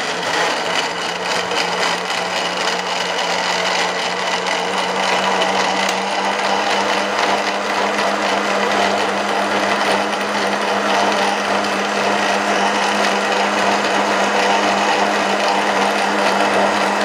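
Lion electric mixer-grinder running steadily at full speed, its motor whining and its blades churning boiled phalsa berries and water into juice in the glass jar.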